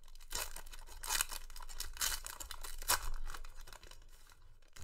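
The foil wrapper of a 2019 Rookies & Stars football card pack being torn open and crinkled by hand. There are several sharp crackles in the first three seconds, then softer rustling as the cards come out.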